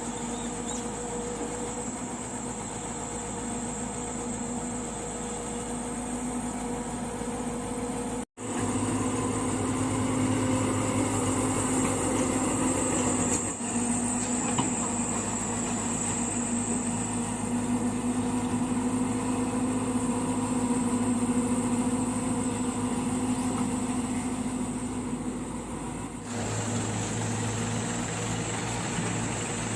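Diesel engines of heavy machinery running steadily with a constant hum. The sound breaks off for an instant about eight seconds in and shifts in tone near the end.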